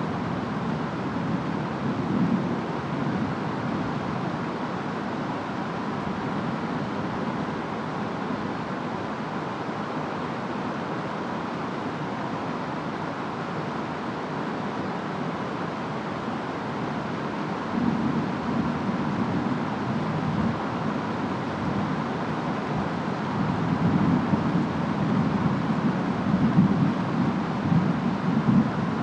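Steady rain falling, with low rumbles of distant thunder rolling in a few times, the longest and loudest near the end.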